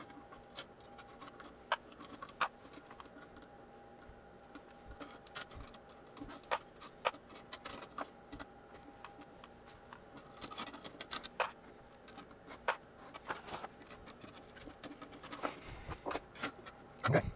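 Irregular small clicks and clinks of rotary wafer-switch parts and wire-ended resistors being handled and pried apart by hand, over a faint steady hum. Near the end come a few louder knocks as parts are set down on the bench.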